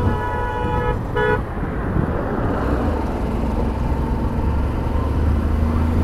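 A vehicle horn sounds and cuts off about a second in, then gives one short toot. After that there is only the steady low hum of a motorcycle engine at cruising speed, with wind and road noise.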